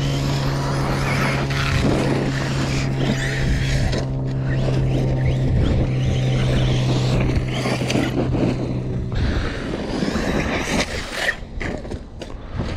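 Traxxas Sledge brushless electric RC monster truck driving hard on a dirt track: a steady motor hum with gritty bursts of tyres on dirt and gravel, the hum stopping about nine seconds in.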